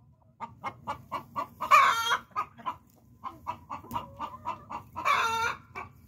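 Chickens clucking: a quick run of short clucks, about four a second, broken twice by a louder, drawn-out call, about two seconds in and again near the end.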